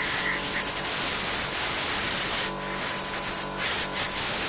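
Compressed air from an air-hose nozzle hissing as it is blown through a small Briggs & Stratton lawnmower carburettor, clearing the jets after a soak in carb cleaner. The air blasts steadily, with a couple of brief dips in the second half.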